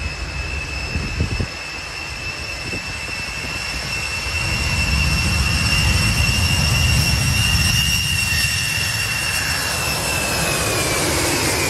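Ilyushin Il-76's four turbofan engines at takeoff power: a steady high whine over a deep rumble that grows louder through the middle. The whine drops in pitch near the end as the aircraft passes the microphone.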